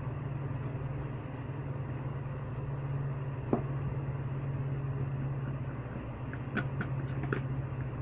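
A few light clicks and taps from adding salt to shampoo and stirring it: one about halfway through, then several close together near the end. A steady low hum runs underneath.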